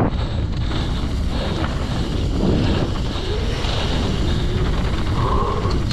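Wind buffeting the microphone over a steady rumble of a mountain bike riding a dirt trail at speed, with a short high tone near the end.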